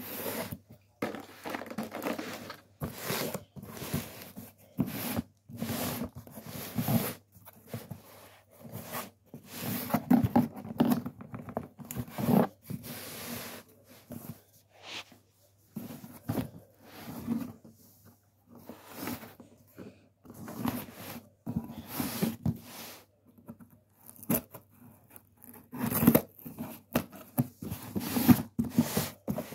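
A corrugated cardboard shipping box handled by hand: irregular short scraping, rubbing and tearing sounds as it is gripped, turned over and its tape worked at.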